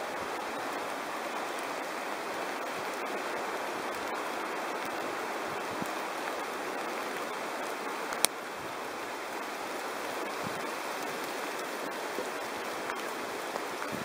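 Steady rush of a fast river flowing over rocks below a footbridge, with one sharp click about eight seconds in.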